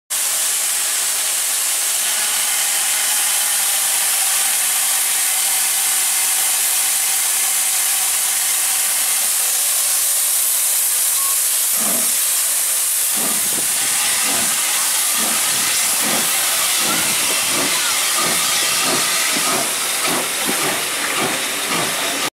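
Steam tank engine No. 30053, an M7 0-4-4T, letting off a steady loud hiss of steam, then the train getting under way with a regular beat of about two strokes a second.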